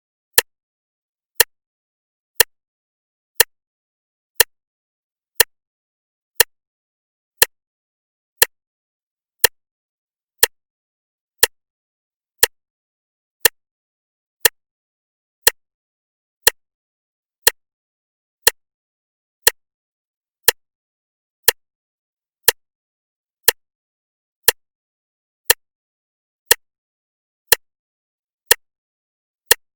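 Clock ticking steadily once a second, each tick a short sharp click with silence between.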